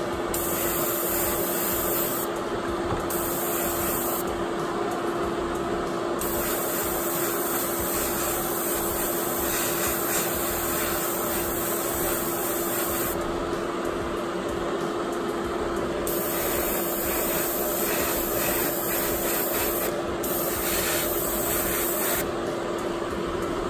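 Gravity-feed airbrush (Paasche Talon TG) spraying paint with a steady hiss of air, laying down a light first coat, over a steady low hum.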